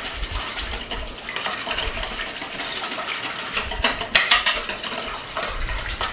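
A whisk beating a thin soup-and-broth mixture in a bowl: rapid wet sloshing with fast clicks against the bowl. A few louder sharp taps come about four seconds in.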